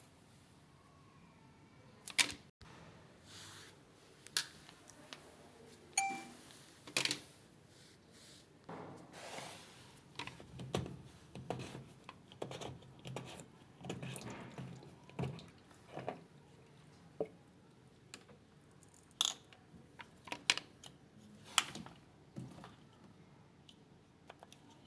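Irregular light clicks, taps and rustles of hands handling tools and machine parts, with no motor or water sound.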